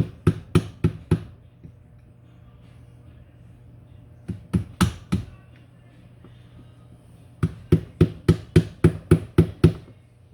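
Sharp taps on an engine part being worked loose during a cylinder-head teardown, struck in three runs: about five quick taps, then three, then about nine at roughly four a second.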